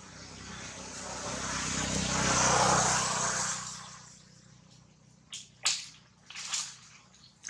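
A passing motor vehicle: its noise swells to a peak about three seconds in and fades away by four seconds, over a steady low engine hum. A few short sharp crackles follow near the end.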